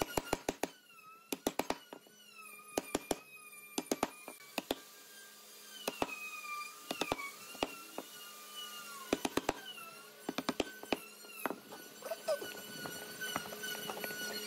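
Wooden mallet striking a steel chisel, chopping a mortise into pine: sharp knocks in quick groups of two to four, a pause of a second or so between groups. A faint wavering whistle-like tone sits underneath.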